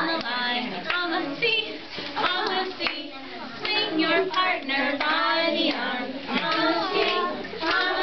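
Young children singing a square-dance song, with hands clapping along.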